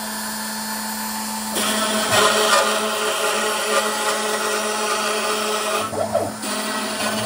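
Makita router spindle on a Shapeoko CNC running at 18,000 rpm, with a 1/4-inch roughing end mill that starts cutting a straight slot through white melamine-faced particle board about a second and a half in, making the sound louder and rougher. About six seconds in the cut ends and the bit lifts out, with a brief dip before the router carries on.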